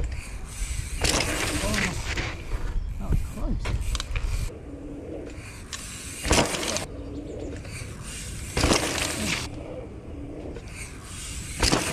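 Mountain bike riding a dirt jump: knobby tyres rolling on dirt and a sharp landing thump about six seconds in, with wind buffeting the microphone early on.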